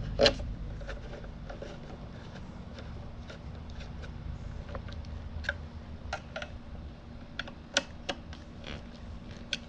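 Scattered light clicks and taps of small metal parts being handled while fitting the cover panel of a Delta 46-460 lathe, the sharpest just after the start and near the end, over a faint steady low hum.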